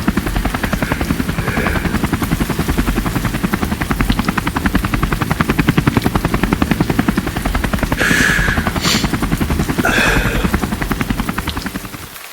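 Helicopter rotor chopping steadily in a fast, even beat, with two brief higher sounds about two-thirds of the way through; it fades near the end.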